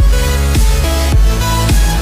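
Electronic background music with a heavy bass beat, just under two beats a second.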